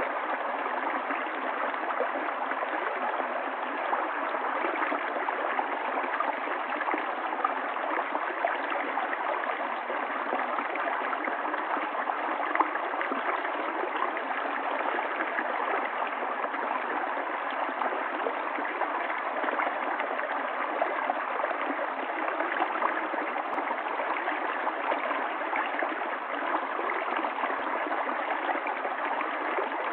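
Running water of a stream, a steady, even rush without pauses.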